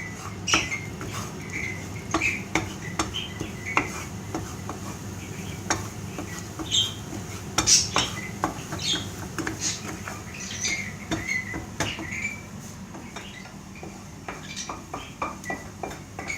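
A spatula scraping and tapping against a frying pan, irregular clicks and scrapes, as beaten eggs are stirred continuously into scrambled eggs. A steady low hum runs underneath.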